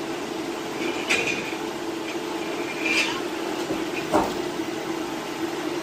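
Hydraulic scrap-car crusher running with a steady hum as its lid lowers. Short metal squeaks and creaks come about a second in and at three seconds, and a brief falling squeal just after four seconds.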